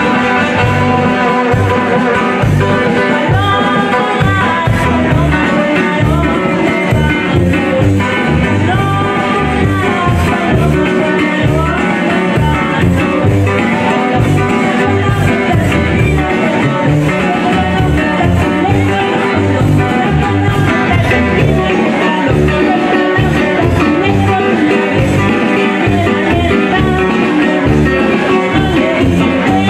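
Live band playing a jarabe dance tune through the stage speakers: guitar and a tuba bass line keeping a steady beat, with a voice singing over it.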